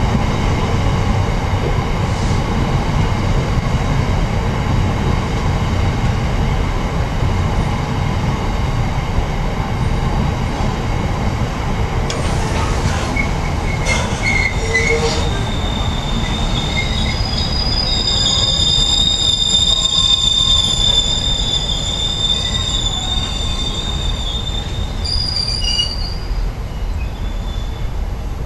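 Freight train of open box wagons rolling past, a steady heavy rumble of wheels on rail. About halfway through, a high-pitched wheel squeal of several steady tones joins the rumble, is strongest for a few seconds, and dies away shortly before the end.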